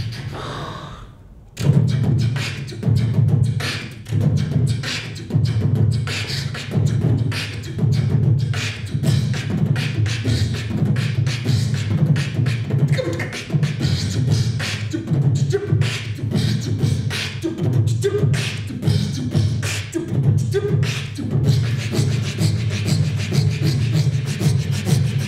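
A man beatboxing into a handheld microphone. After a brief lead-in, a steady, fast beat starts about a second and a half in: heavy bass kicks under crisp snare and hi-hat clicks, with a few short hummed notes mixed in partway through.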